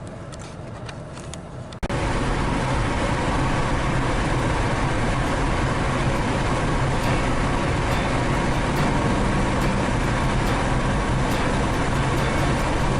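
Steady road and wind noise of a vehicle driving at speed, starting abruptly and loud about two seconds in.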